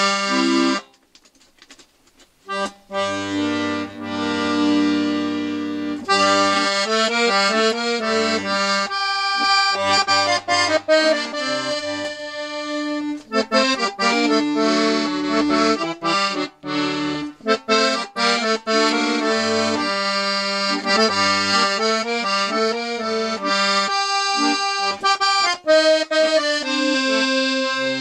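Galanti piano accordion played on the master register, its reeds freshly cleaned, re-waxed and tuned: a short chord, a pause of a second or so, then a tune with right-hand melody and chords over left-hand bass notes.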